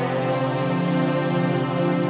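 Background music of slow, sustained tones in a calm new-age style.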